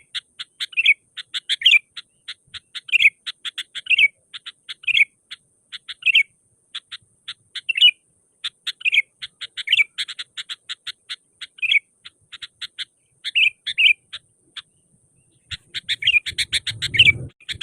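Sooty-headed bulbul (kutilang) singing vigorously: a fast run of short, sharp chirps broken roughly once a second by a richer warbling phrase. Near the end the song pauses briefly, then resumes with a low rumbling noise underneath.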